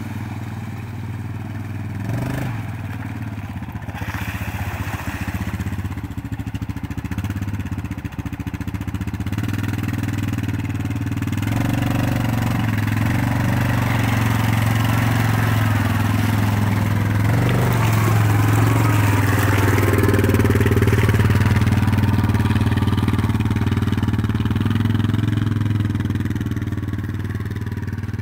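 ATV engine running as the quad churns through muddy, water-filled ruts. It grows louder as the machine comes close past the middle and eases off as it moves away near the end.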